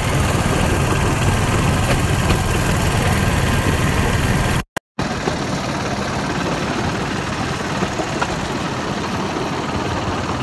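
Small engine of a bamboo train (norry) running steadily as the platform rolls along the rails. The sound cuts out completely for a moment a little under five seconds in, then carries on with less low rumble.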